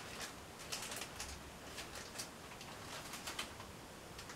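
Faint rustling and light crinkly ticks of a clear plastic parts bag being handled.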